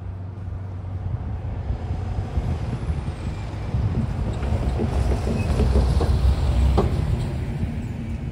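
Box truck driving across the railroad crossing, its engine and tyres growing louder to a peak about six to seven seconds in, with a run of knocks and rattles as it rolls over the rails.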